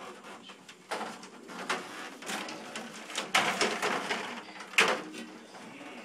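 Cloth rubbing and brushing close against the microphone, an uneven rustle with four sharp knocks.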